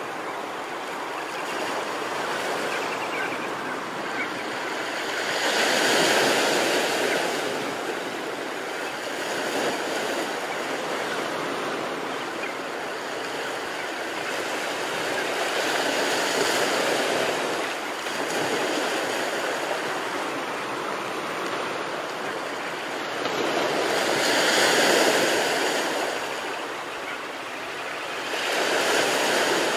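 Ocean surf breaking on a beach: a continuous wash of noise that swells and fades as each wave comes in, loudest about six seconds in and again around twenty-five seconds.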